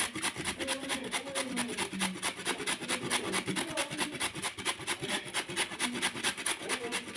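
Fast, even, rhythmic scraping or rasping, about six strokes a second, that stops at the very end.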